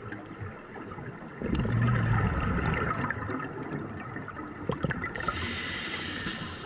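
Underwater sound from a diver's GoPro: the scuba regulator's exhaled bubbles gurgle loudly for about a second, starting about a second and a half in, over a steady hiss with a few faint clicks later on.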